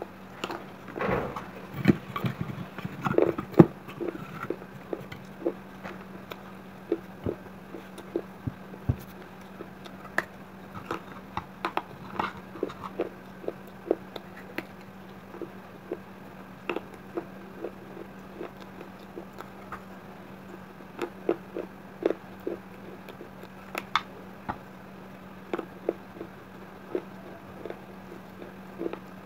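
Close-up biting and chewing of pieces of baked red clay pot: a run of short, sharp crunches with irregular gaps, denser and louder in the first few seconds.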